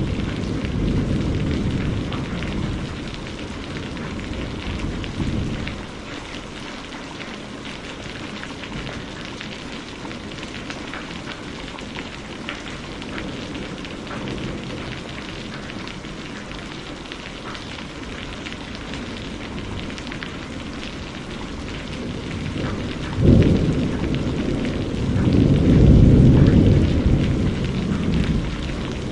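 Steady heavy rain falling and pattering on surfaces, with distant thunder rumbling in the first few seconds. Near the end a sudden thunderclap breaks, followed by a long rolling rumble, the loudest sound here.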